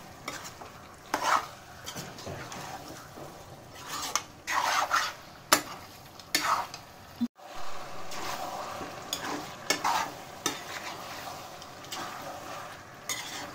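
Chicken pieces and sliced onions sizzling in oil in a non-stick pan while a metal spatula stirs and scrapes through them in repeated strokes, every second or two. The chicken is being sautéed with the onions until it changes colour and its juices cook off. The sound cuts out for an instant about seven seconds in.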